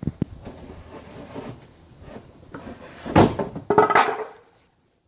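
Handling knocks: a sharp knock as a phone is set down on a concrete floor, then rustling. About three seconds in come louder clunks and scraping at the plastic collection bucket of a homemade dust cyclone as it is worked free.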